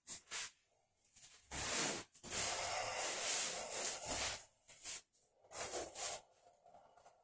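A person breathing heavily during a stretch: several long, noisy breaths in and out with short pauses between them, the longest lasting about two seconds.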